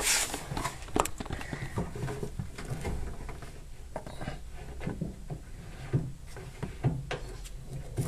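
Scattered light clicks and knocks as a washing machine's threaded leveling foot is turned by hand to shorten it and lower that corner of the machine.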